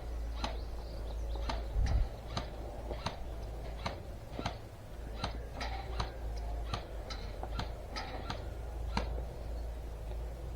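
A series of sharp clicks, irregular, about one or two a second, over a steady low rumble.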